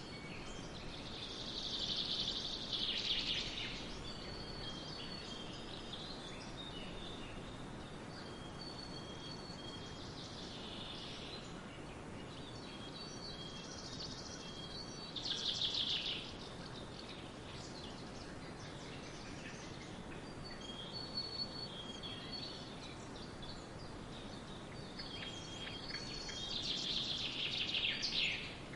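Songbirds singing outdoors. Loud phrases of rapid high notes come about two seconds in, around the middle, and near the end, with fainter thin whistled notes repeating in between. A steady background hiss runs underneath.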